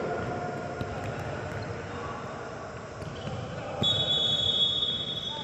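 Footballs being kicked and bouncing on a hardwood sports-hall floor, with running feet, in an echoing hall. A high steady tone starts about two-thirds of the way in.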